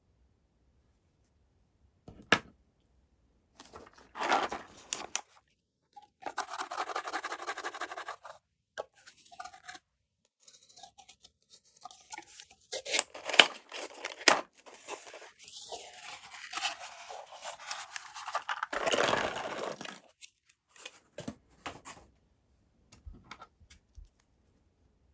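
Blind-box packaging being torn and handled open in short bouts of tearing, scraping and crinkling, with pauses between them. A sharp click comes about two seconds in, and a few small ticks come near the end.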